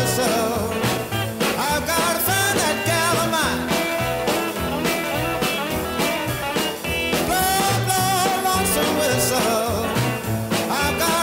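Late-1950s blues and rock and roll record: a band with guitar and a steady beat, with a singer's voice over it.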